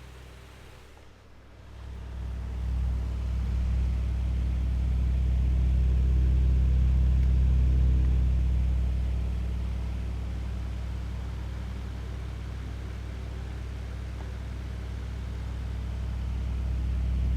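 Electric fan recorded very close up: a steady low hum with a deep rumble, starting about two seconds in after a brief, quieter stretch of the fan heard from farther off. The loudness swells and eases slowly.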